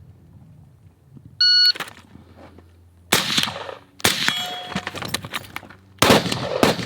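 Shot timer beeps once, then gunfire from the drill: a rifle shot about three seconds in, followed by further shots with a steel target ringing after a hit.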